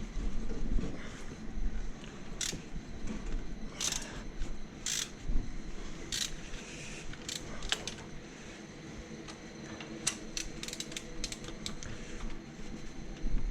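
Metal hand tools clicking and clinking on an Audi 2.6 V6 engine while the second cylinder head is being removed. Irregular sharp clicks, with a quick run of them about ten seconds in.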